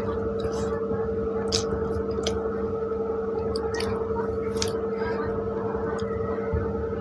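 A person chewing a mouthful of soft pav bread and bhaji, with short wet smacks every second or so. A steady hum runs underneath.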